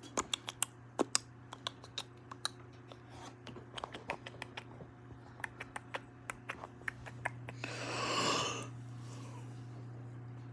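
Irregular sharp clicks of keys being typed on a computer keyboard over a steady low hum, followed by a short breathy rush about eight seconds in.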